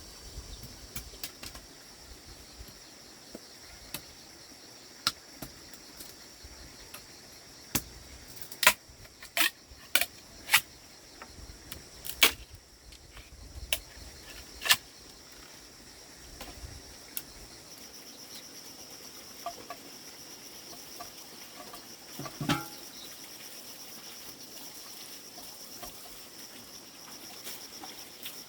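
Crickets or other insects trilling steadily at a high pitch, growing stronger in the second half. Over it come about a dozen sharp snaps or cracks in the first half, and one duller knock about two thirds of the way in.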